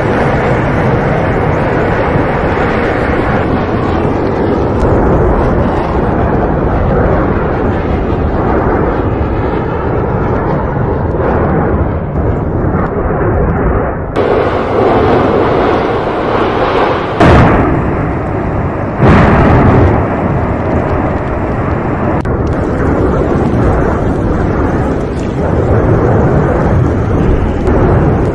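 Erupting volcano: a continuous loud rumble from the vent, broken by explosive blasts, the two sharpest coming close together a little past the middle.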